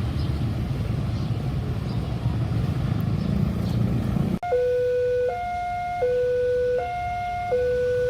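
A steady low rumble, then an abrupt cut about halfway through to an electronic two-tone alarm. It alternates between a lower and a higher note, each held just under a second: a railway level-crossing warning signal.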